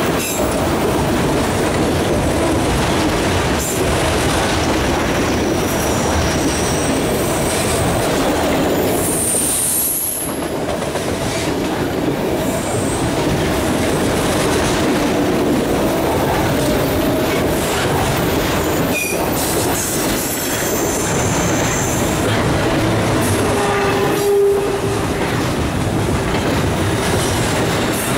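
Freight cars rolling past at close range: a steady rumble and rattle of steel wheels on rail, with a few brief, high-pitched wheel squeals. The cars are autoracks, then double-stacked intermodal well cars near the end.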